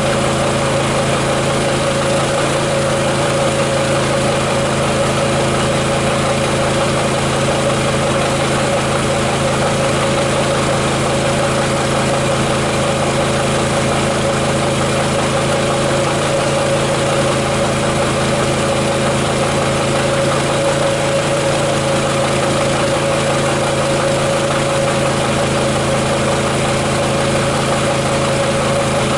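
Champion Dual Fuel 3400-watt inverter generator running steadily at a constant speed, a continuous engine hum with a strong mid-pitched tone over it.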